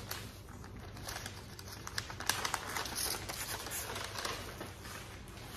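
Brown paper packaging being unwrapped by hand: rapid, irregular rustling and crinkling of paper, with louder crackles about two to three seconds in.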